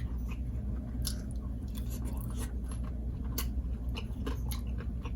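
Close-miked chewing of egusi soup and chapati, with soft wet mouth clicks at irregular intervals over a steady low hum.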